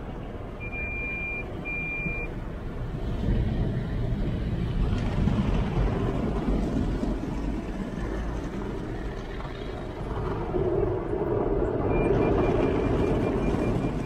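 Automatic car-wash machine spraying water over the car, heard from inside the cabin as a steady rumbling rush of water on the glass and body. Two short beeps sound about a second in, and a faint run of quick beeps starts near the end.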